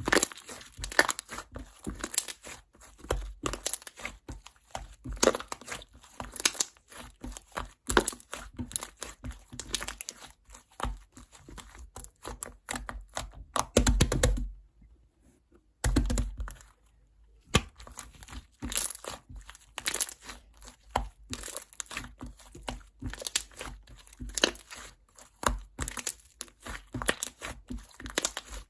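White chewy slime being squished and stretched by hand, making rapid irregular clicks and pops, with a short pause about halfway through.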